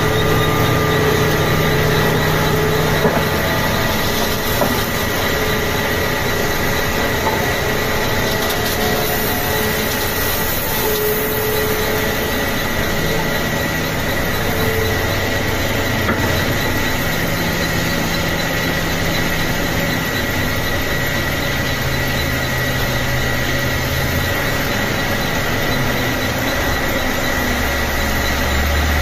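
Tata Hitachi hydraulic excavator's diesel engine working under load, its low pitch stepping up and down as the machine swings and digs. A steady high whine runs underneath.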